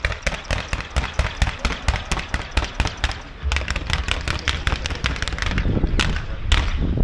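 Firecrackers going off in a rapid, uneven string of sharp bangs, several a second.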